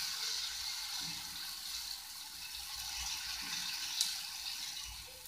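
Wheat-flour dosa batter sizzling with a steady hiss on a hot oiled griddle as a steel ladle spreads it, the sizzle slowly fading, with one sharp tap about four seconds in.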